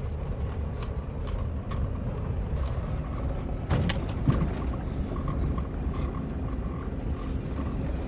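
Lada Niva 1.7's four-cylinder petrol engine and tyres heard from inside the cabin on a rough dirt road: a steady low rumble with scattered rattles and knocks, and a louder jolt about four seconds in.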